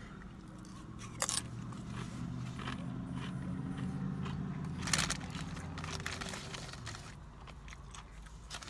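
Tortilla chips crunching as a person bites and chews a mouthful, in scattered crisp crunches with two sharper ones about a second in and about five seconds in.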